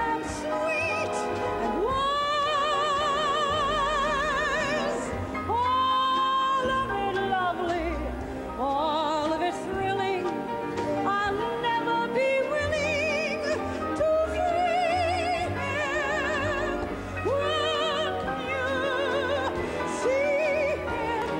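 A woman singing held notes with wide vibrato, in a classically trained theatre soprano, over a full orchestra's accompaniment.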